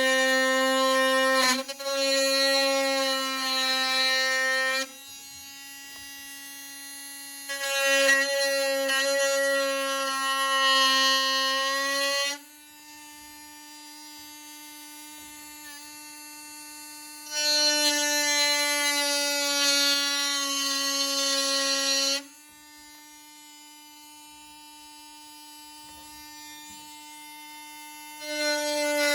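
A small pistol-grip rotary tool with a roto zip type bit whines steadily at high speed while cutting away the plastic of an old pin hinge. Four times it grows loud for about five seconds, its pitch dipping slightly as the bit bites into the plastic, and in between it runs more quietly.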